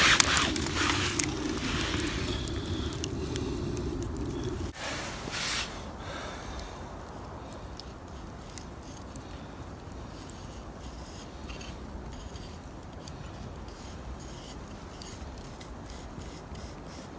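Scraping and scratching, louder for the first few seconds, then changing abruptly about five seconds in to a quieter run of small scratches and ticks.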